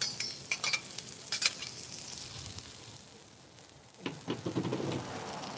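Frozen peas and carrots sizzling on a hot griddle in butter and oil, with a few sharp pops and crackles in the first second and a half, then a steady hiss.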